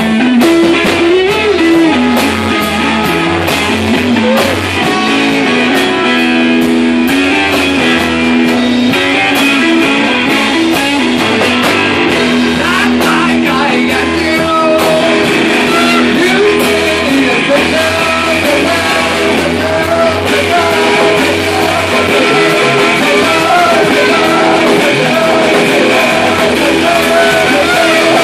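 Live rock band playing loud and steady: guitars and drums with a singer's voice over them, clearest in the second half.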